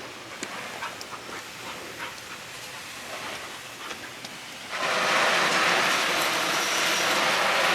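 Faint background with light ticks, then about two-thirds of the way in water starts spraying from a garden hose nozzle: a loud, steady hiss that keeps going.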